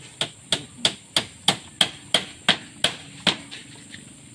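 Hammer striking the wooden planks of a raised goat pen, a steady run of about eleven blows at roughly three a second that stops a little after three seconds in.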